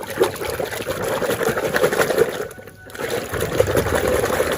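Water running and splashing as a muddy toy vehicle is washed clean, briefly letting up about two and a half seconds in before carrying on.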